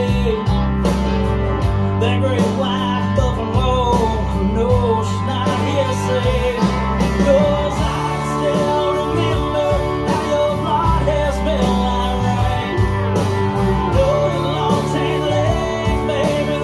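A song with guitar and singing, played over a home hi-fi system of planar magnetic main panels and subwoofer towers and heard in the room. The subwoofers are low-passed at 60 Hz with an 18 dB Bessel filter, and the bass is steady underneath; the owner judges it smoother and less obtrusive than with the 80 Hz crossover.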